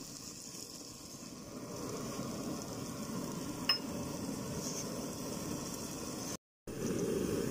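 Spiced onion masala sizzling in a kadai as it is stirred with a wooden spatula, with one sharp clink a little past halfway. After a brief cut near the end, a louder steady hum comes in.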